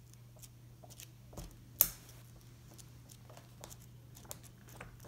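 Pages of a thick hardcover book being flipped one after another: soft papery ticks throughout, with one sharp page slap just under two seconds in.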